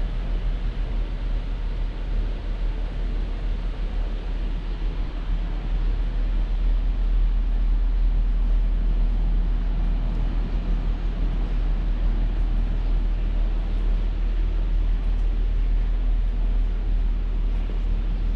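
Steady low outdoor rumble with no distinct events, a little louder from about six seconds in.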